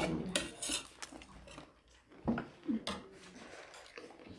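Spoons clinking and scraping on plates, with chewing of food, in a few short bursts: a cluster in the first second and more around two to three seconds in.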